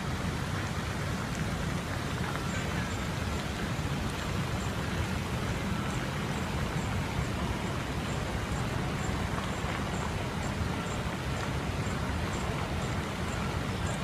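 Steady rush of water from the KLCC Park lake fountain's jets spraying and splashing back onto the lake surface.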